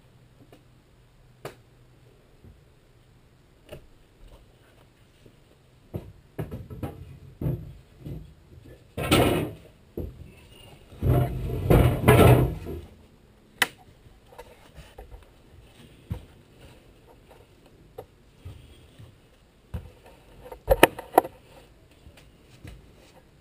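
Workshop handling sounds while gluing a plywood skin onto a trailer frame: scattered taps and knocks, two longer rough scraping stretches about nine and eleven seconds in, and a quick pair of sharp knocks near the end.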